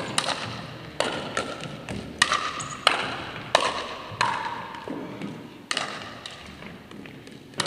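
Pickleball rally: sharp pocks of a hard plastic ball struck by paddles and bouncing on a wooden floor, about a dozen hits at an irregular pace, each ringing briefly in the gym's echo.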